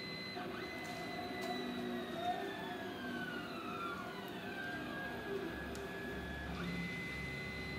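CNC hot-wire foam cutter's axis motors whining as the machine traces a cut through polystyrene foam. The pitch slides up and down as the axes speed up and slow down, over a steady high whine that breaks off briefly twice.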